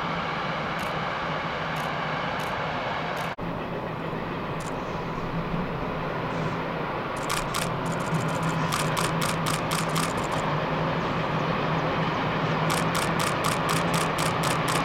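Steam locomotive working a passenger train: a steady train rumble with runs of rapid exhaust beats, about four a second, from about seven seconds in. For the first three seconds, before a cut, another train rumbles steadily.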